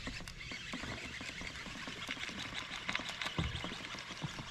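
Scattered clicks and knocks from a fishing rod and reel and the kayak as an angler fights a hooked largemouth bass, with a cluster of clicks about three seconds in and a low thump just after, over a steady low rumble.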